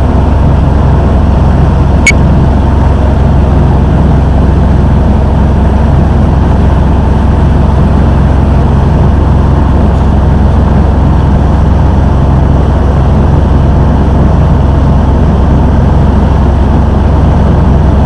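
River boat's engine running with a steady low drone, heard from on board. A single sharp click about two seconds in.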